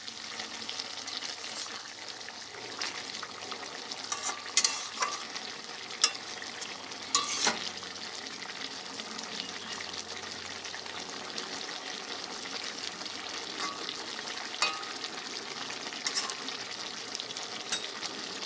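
Cauliflower and potato curry sizzling in a metal kadhai as a spatula stirs it, with sharp scrapes and taps of the spatula against the pan, most of them between about four and eight seconds in.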